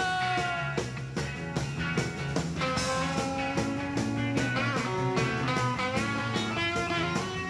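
Psychedelic rock band playing live: electric lead guitar over bass and drums in an instrumental passage. A held, wavering note dies away just under a second in.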